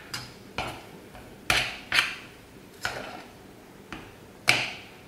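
A utensil knocking and scraping against the side of a stainless steel pot while yam bean mash and tapioca starch are mixed into a dough. About seven sharp, irregular knocks, the loudest one near the end.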